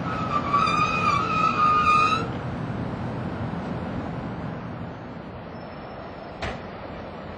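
FS E.636 electric locomotive and its train rolling past slowly. A high-pitched wheel squeal over the running noise lasts about the first two seconds, then gives way to a steady rolling rumble that slowly fades, with a single sharp click near the end.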